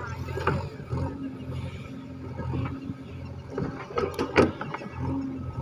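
JCB 3DX backhoe loader's diesel engine running steadily while digging, with sharp metallic clanks from the bucket and arm, a cluster of them about four seconds in.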